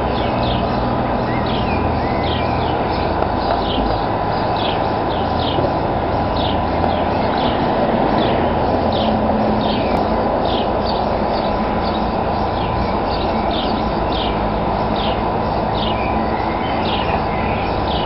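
Small birds chirping repeatedly, short falling chirps about twice a second, over a steady rushing background noise and a faint steady tone.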